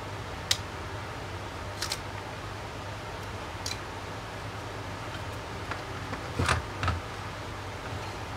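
A few short, sharp clicks and taps from hands handling a Garmin Nuvi GPS's small plastic parts and ribbon cable, the loudest pair about six and a half seconds in, over a steady low hum.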